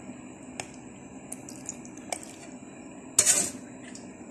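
Sugar syrup being spooned into a glass jar of sliced ginger: liquid dripping and pouring with a few light clicks, and one louder short burst about three seconds in.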